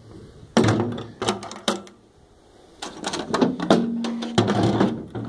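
Steel military ammo cans clanking and scraping against each other as they are shifted and set side by side, a series of sharp metallic knocks with brief ringing.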